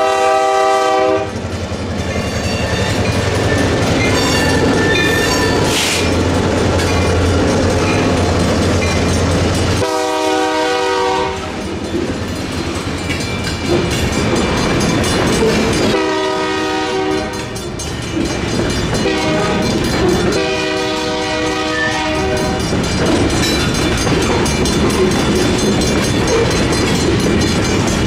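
EMD GP38N diesel locomotive's horn sounding repeatedly over a grade crossing: a blast ending about a second in, another about ten seconds in, then a long, a short and a long blast from about sixteen seconds. Between the blasts the locomotive's diesel engine drones as it passes. A freight train of covered hoppers and tank cars then rolls over the crossing with wheel clatter, while the crossing's Safetran bell keeps ringing.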